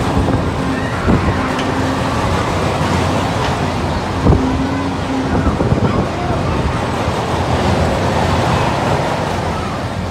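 Tornado spinning carnival ride in motion, heard from a rider's seat: a steady loud mechanical rumble with a faint hum that comes and goes, and a sharp knock about four seconds in.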